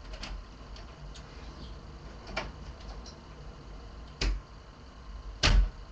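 Three knocks or bumps from elsewhere in the house, a second or two apart, the last one the loudest, with a few faint clicks before them over quiet room tone.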